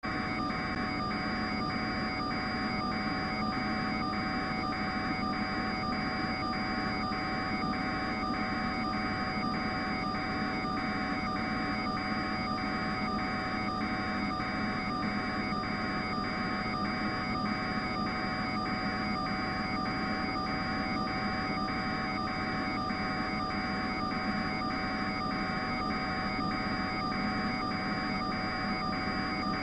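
Steady droning noise with several held tones and a pulsing beat a little under twice a second, unchanging throughout.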